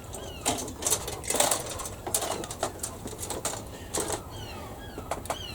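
Irregular small clicks and rustles of plastic kit parts and sprue being handled on a workbench, with a small bird chirping repeatedly in short falling notes.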